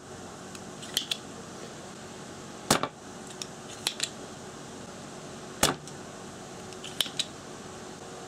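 Spring-loaded solder sucker (desoldering pump) firing with a sharp snap twice, about three seconds apart, pulling molten solder off a capacitor's joints on a monitor circuit board, with lighter double clicks from the pump between the snaps.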